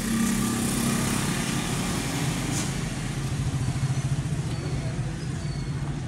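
Steady low rumble of a motor vehicle engine running, its pitch settling a little lower about two seconds in.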